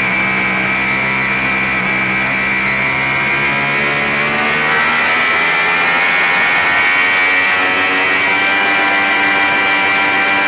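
Sport motorcycle's engine pulling in third gear, its revs climbing steadily as it accelerates, with wind noise rushing over the bike-mounted camera.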